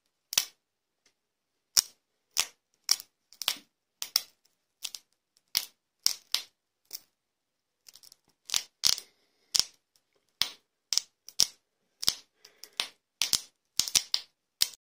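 Chicken tikka boti skewers cooking on a grill: sharp, scattered crackles and pops of fat spitting from the meat, about one or two a second and irregularly spaced, with silence between them.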